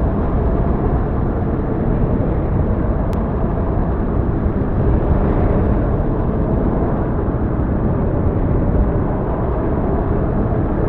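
Storm wind blowing hard across the microphone: a steady, low rushing noise with no letup.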